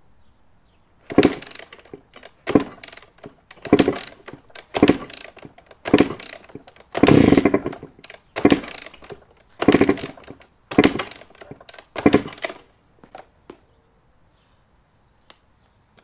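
Two-stroke dirt bike being kick-started about ten times in a row, roughly once a second, the engine turning over with each kick but not firing. It is flooded, and the spark plug fouled.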